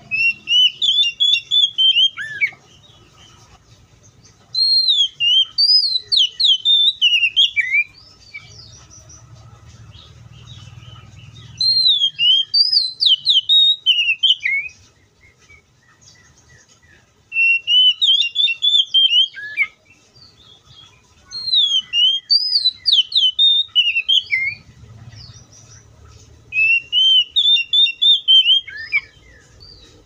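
Oriental magpie-robin singing: six phrases of quick whistled notes sliding up and down, each two to three seconds long, with short pauses between.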